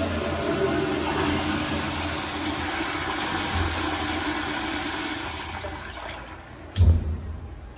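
An American Standard commercial toilet or urinal flushing: a steady rush of water that fades away over about six seconds. Near the end there is a single short, low thump.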